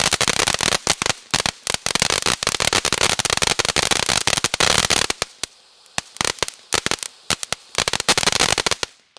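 Firework fountain spraying and crackling: dense, rapid crackles over a steady hiss, thinning to scattered pops after about five seconds and dying out near the end.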